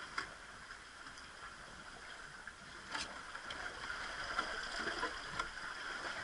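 Sea water washing and lapping against shoreline rocks, a steady rushing wash, with a few sharp clicks scattered through it.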